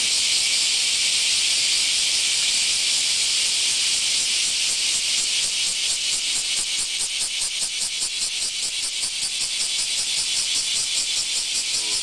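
A chorus of Japanese cicadas (semi) singing loudly in the trees: a dense, high-pitched, hissing buzz. About halfway through it takes on a quick, even pulsing of several beats a second.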